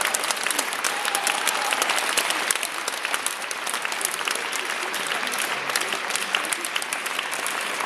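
An audience applauding: many hands clapping steadily, a dense patter that keeps up at an even level throughout.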